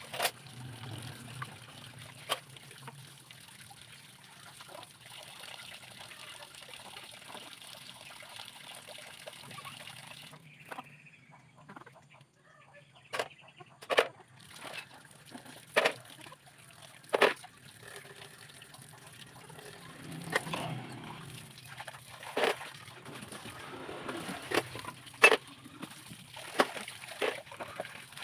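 Dishes being washed by hand under a tap. Water runs and splashes for the first ten seconds or so, then stops; after that come scattered sharp clinks and knocks of plates, plastic basins and a steel cup being handled and set down.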